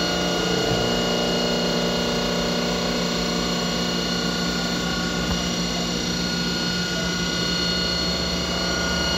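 CNC machining center's spindle running with an end mill milling a workpiece: a steady machine whine with several high tones over cutting noise. A lower hum joins about a second in and drops away around seven seconds.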